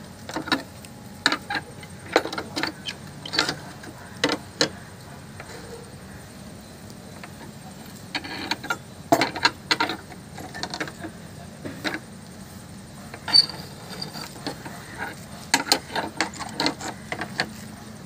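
Steel rebar clinking and knocking against the steel pins of a hand bending jig and the bending bar as it is bent by hand into square stirrups. Irregular sharp metallic clicks come in clusters, with a quieter pause about five to eight seconds in.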